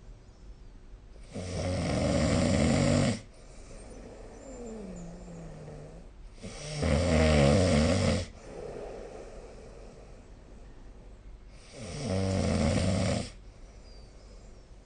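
A sleeping person snoring: three loud snores about five seconds apart, each lasting one and a half to two seconds, with quieter breathing between them.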